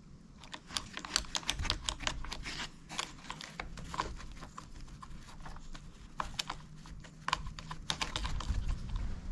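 Rapid, irregular clicking and ticking of a wrench tightening a fastener on a string trimmer's handle.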